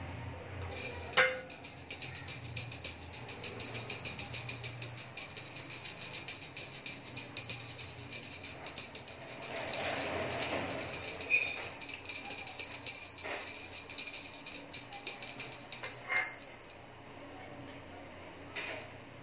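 Small brass pooja hand bell rung continuously in rapid strokes, with a steady high ring. The ringing stops about seventeen seconds in and the tone fades away.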